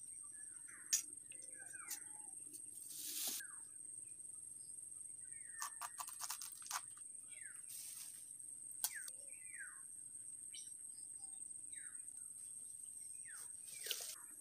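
Bolo (machete) cutting at a banana plant: a few sharp knocks and brief rustling swishes of leaves. Behind it, birds give repeated short down-slurred chirps over a steady high insect drone.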